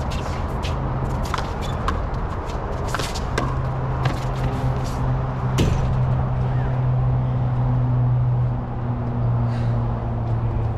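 A small rubber handball smacked by gloved hands and cracking off concrete court walls in a quick rally: a run of sharp smacks over the first six seconds or so, then they stop. A steady low hum runs underneath throughout.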